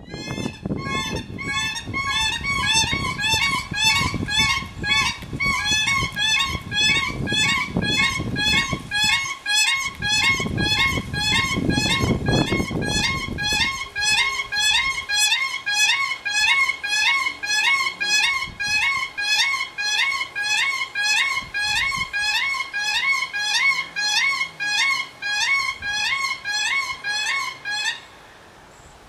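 A Siberian crane pair giving a unison call: high, fluty, pitched notes repeated about twice a second that stop abruptly near the end. A low rumbling noise runs under the first half.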